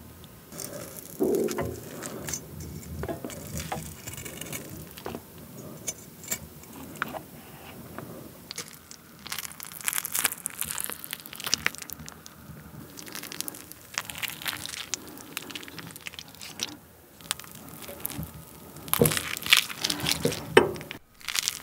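Melted raclette cheese being scraped off a half-wheel with a knife, over and over: crackling and tearing sounds as the molten layer peels away, with the loudest scrapes near the end.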